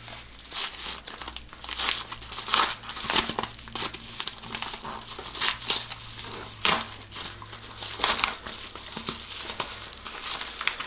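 Small yellow padded paper mailer being torn open and crumpled by hand: irregular crinkling and tearing strokes throughout.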